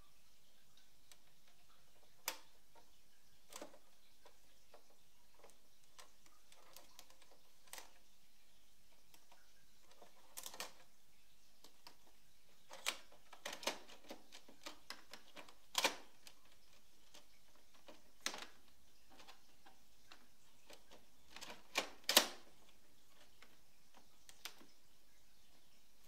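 Scattered plastic clicks and knocks as the front paper tray of an Epson Stylus Photo PX720WD printer is handled and slid into place. They come irregularly, in a cluster past the middle and again near the end, with a few louder clacks among them.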